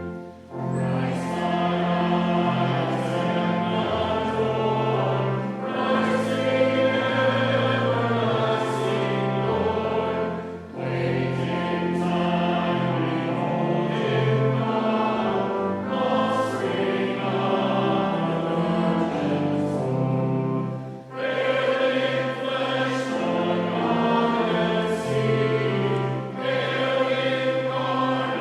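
Choir singing with instrumental accompaniment, phrase after phrase, with short breaths between phrases about ten and twenty seconds in.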